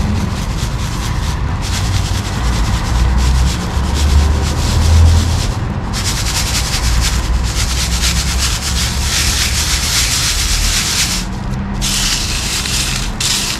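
Dry sand and gravel scraping and rustling as it is worked by hand, a rasping noise that comes in stretches and grows stronger after about six seconds, with short breaks. A steady low hum runs underneath.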